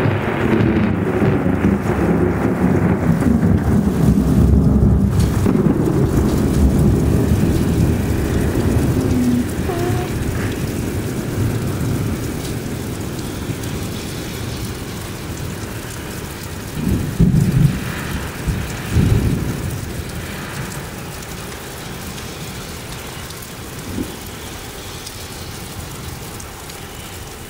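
Thunder rolling long and loud through the first several seconds, then slowly dying away, over steady heavy rain. A couple of brief low rumbles come about two-thirds of the way in.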